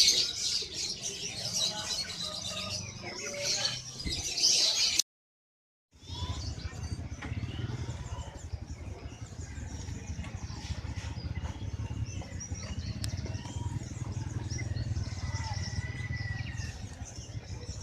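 Many caged birds chirping and twittering together, dense and fairly loud at first. After a second-long dropout, a steady low hum carries on with fainter scattered bird calls and one short held whistle near the end.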